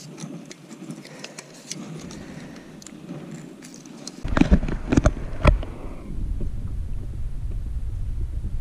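Light clicks and rattles of fish-handling gear, then several loud clacks between about four and five and a half seconds in as a spring-loaded lip-grip fish scale is clamped onto a largemouth bass's jaw and lifted. A steady low rumble follows.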